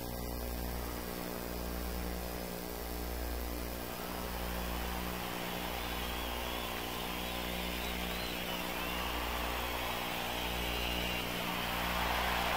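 Steady electrical mains hum with a buzz of many tones, under crowd noise in an arena that swells from about a third of the way in and is loudest near the end.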